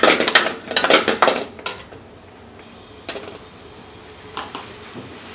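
Metal spoon clattering and scraping against a metal frying pan while stirring chicken curry: quick strokes for about the first two seconds, then a few single light knocks.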